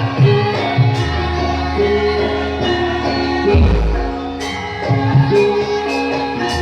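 Live ensemble music with a steady percussion beat, sustained pitched instruments and a singing voice; deep bass notes come in about a second in and again around three and a half seconds in.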